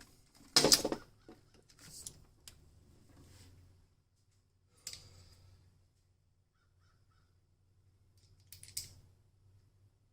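A few sharp metallic knocks and clanks, the loudest about a second in and fainter ones near 2, 5 and 9 seconds, as a battery cable terminal and tools are handled, over a faint steady low hum.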